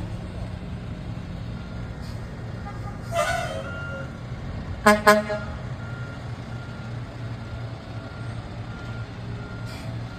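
Heavy truck engine running steadily, with a reversing alarm beeping faintly about once a second. Two short, loud horn toots come about five seconds in.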